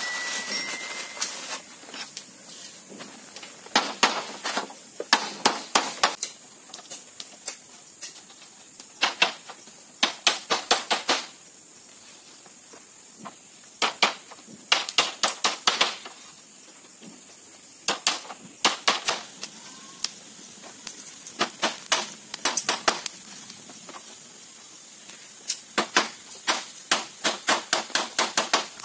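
Hammer knocking split-bamboo slats down onto their bamboo joists: quick runs of sharp knocks, about five a second, with pauses of a second or two between runs.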